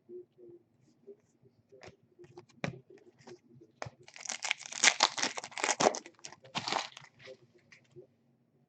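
A foil trading-card pack being torn open and its wrapper crinkled: a dense crackly tearing sound about four seconds in that lasts roughly three seconds. Before it come scattered light clicks and taps of cards being handled.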